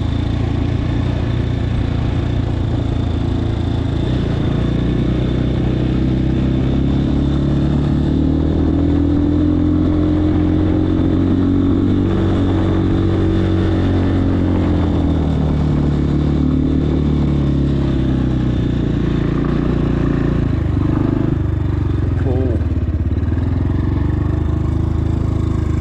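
Trailmaster TM33 dirt bike's 233cc single-cylinder engine running under way, its pitch rising and falling several times as the throttle is opened and eased off.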